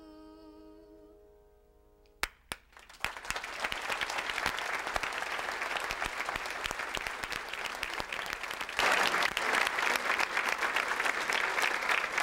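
The last held note of a song with its accompaniment fades out, then a few single claps and a large seated audience breaks into applause, which grows louder about nine seconds in.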